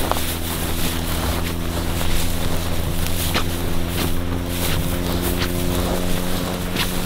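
Footsteps swishing through tall dry grass, a few irregular brushes and steps, over a steady low hum that has several pitched lines.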